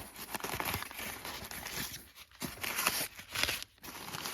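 Cardboard box and its packing being handled and opened by hand: irregular rustling and crinkling with small knocks and scrapes, busiest around the middle.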